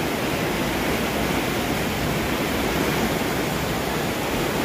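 Floodwater rushing through a street: a steady, unbroken rush of water.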